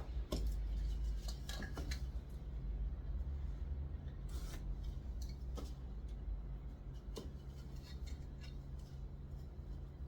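Intermittent short scrapes and clicks of hand tool work, over a low steady hum.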